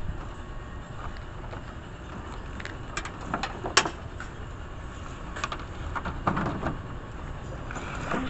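Demolition debris (broken drywall and wood scraps) being dragged and pulled from a pickup truck bed: scattered scrapes and knocks, the sharpest about four seconds in, over a steady low rumble.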